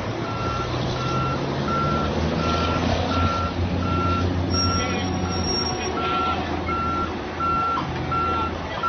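A vehicle's reversing alarm beeping steadily, about three beeps every two seconds, over the low, steady running of a heavy vehicle's engine.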